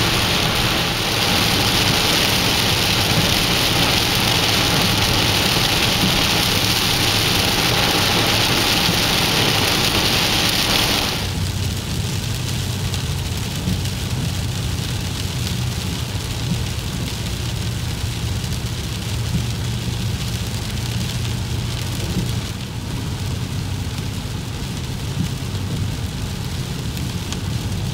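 Heavy rain falling in a steady hiss, with a low vehicle hum beneath it. About eleven seconds in, the hiss of the rain drops suddenly quieter.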